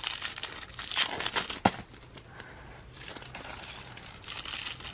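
Packaging rustling in bursts as it is handled and opened to get a strap out, with one sharp click about one and a half seconds in.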